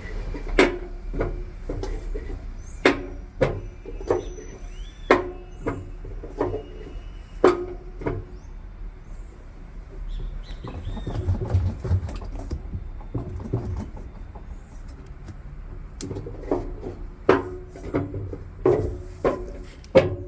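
Samsung washer-dryer's drum knocking against the machine during the spin cycle: sharp knocks with a short ring, coming irregularly about once a second over a low rumble, thinning out for a few seconds midway. The knocking is the sign of a loose drum (basket) striking as it spins.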